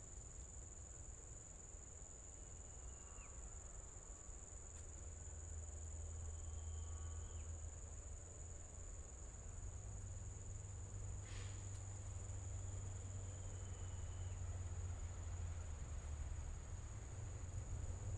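Steady high-pitched insect trill, crickets or similar, running without a break over a low rumble. A few faint short whistles and a single click about eleven seconds in.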